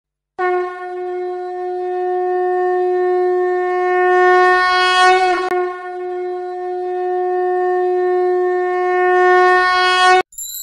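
Conch shell (shankh) blown as a long, steady horn-like note, with a brief wobble and break about five seconds in before a second equally long blast that stops abruptly.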